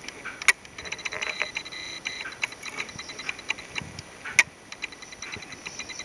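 Small sharp clicks and taps of a beading needle picking glass seed beads off the table and stitching them onto cross-stitch canvas, with two sharper clicks, one about half a second in and one about four and a half seconds in. Runs of fast, faint, even ticking sound behind them.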